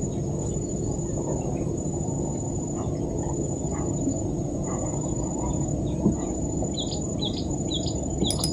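Riverside ambience: a steady high-pitched insect drone over a low rumble, with a bird's short falling chirps repeating about twice a second near the end.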